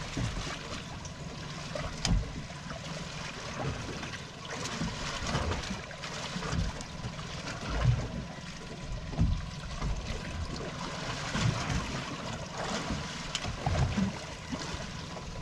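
Sea water lapping and sloshing against the hull of a small drifting boat, with irregular low thumps.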